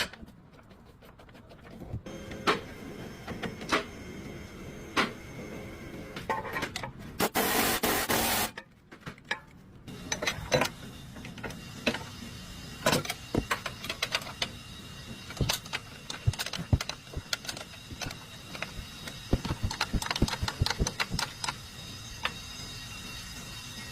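Irregular metallic clicks and knocks of tools and parts being handled, with a loud hiss lasting about a second and a half about seven seconds in.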